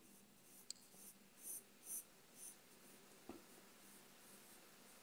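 Faint scratching of a sharp HB graphite pencil drawing a few short strokes on paper, with a small tick about three seconds in.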